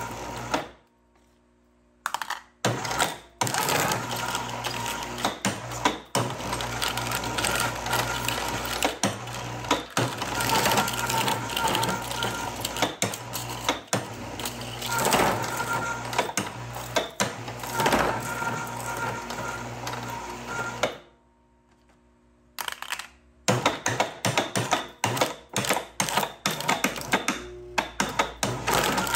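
Precious Plastic shredder's rotating steel blades crunching and tearing aluminum cans: a dense rattling crackle with sharp cracks over a steady whine. It cuts out to near silence about a second in and again around twenty-one seconds in, then resumes.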